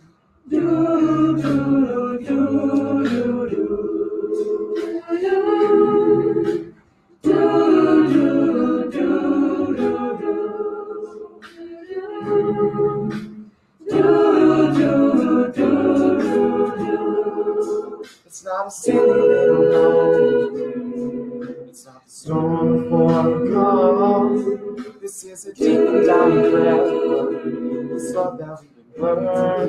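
A mixed-voice a cappella group singing in harmony over a low bass line, in phrases separated by brief pauses.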